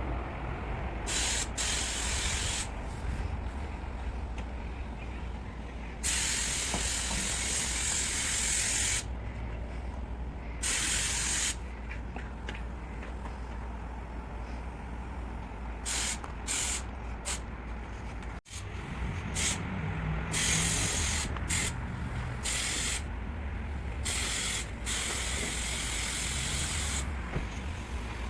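Paint spray gun hissing in repeated bursts as the trigger is pulled and released, one long pass of about three seconds among several short ones, over a steady low hum.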